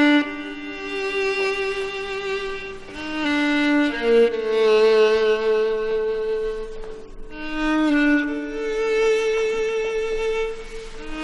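Background music: a slow violin melody of long held notes over a lower sustained string line.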